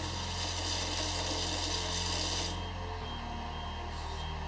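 Bead-sorting machine running: its vibration motor hums steadily while the fuse beads make a rasping, rubbing rattle in the feeder. The rattle stops about two and a half seconds in, and the hum changes pitch slightly about a second later.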